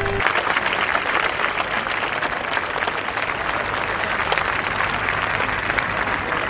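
Audience applauding with dense, steady clapping. A held musical note cuts off just as it begins.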